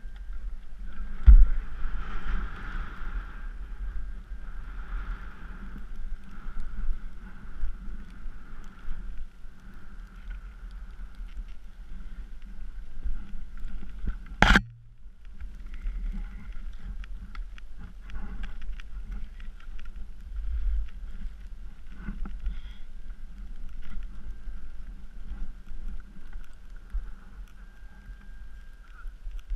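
Skis running through deep powder snow, heard through a body-mounted action camera's housing as a continuous muffled rushing rumble. There is a knock about a second in and one sharp click about halfway through.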